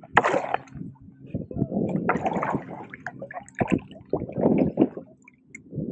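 Water splashing and sloshing in irregular bursts as a hooked largemouth bass thrashes at the surface beside a kayak while being landed.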